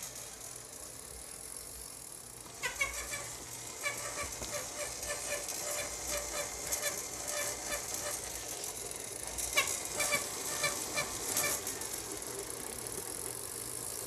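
Side-mounted MY1016 e-bike conversion motor running and driving the bicycle's rear wheel by chain: a steady whir with chain rattle and rapid clicking that starts about three seconds in, busiest a little before the end.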